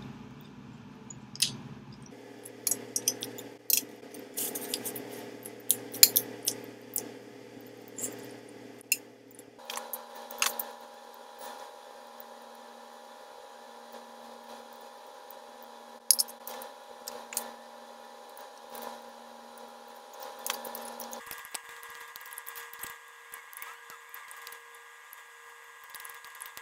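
Close-up eating sounds: a person chewing and smacking on roast chicken, with sharp clicks and scrapes of a metal fork against a glass baking dish. A faint steady hum underneath changes pitch abruptly a few times.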